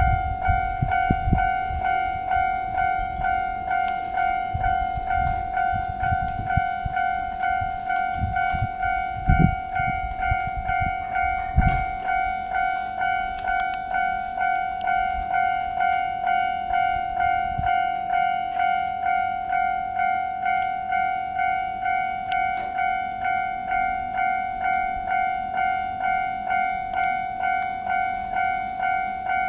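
Japanese level-crossing warning bell ringing steadily, a ding repeated about twice a second. Under it for the first twelve seconds is a low rumble with a few heavy thumps, a train passing over the crossing.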